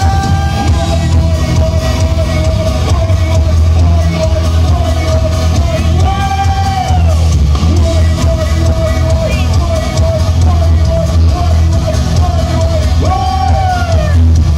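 Live band music played loud through a PA, a singer's voice in long held notes with pitch bends over a heavy, steady bass.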